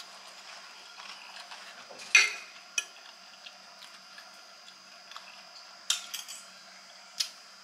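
Metal fork clinking and scraping against a plate: a few sharp clinks several seconds apart, the loudest about two seconds in.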